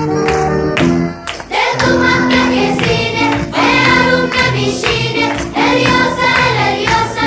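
Bandari-style music with a steady drum beat. About a second and a half in, after a brief drop, a choir of children and women comes in singing in unison over the beat.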